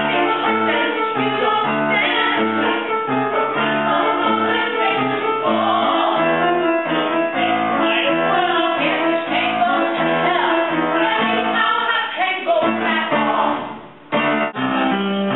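Music: singing over piano accompaniment, breaking off briefly near the end before carrying on.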